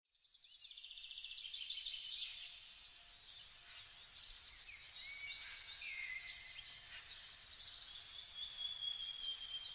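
Songbirds singing: quick chirps and trills, with a long, slowly falling whistle near the end, over faint outdoor background noise.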